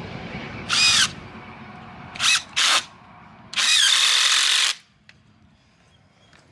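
Cordless drill driving a screw through a white ash rail pole into a stake: four short bursts of the motor's whine, the last and longest lasting about a second.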